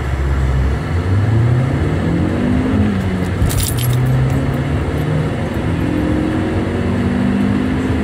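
Opel Zafira 1.4 Turbo petrol four-cylinder engine heard from inside the cabin under full-throttle acceleration. Its note climbs in pitch through each gear and drops back at each upshift. A brief metallic jingle comes a little under halfway through.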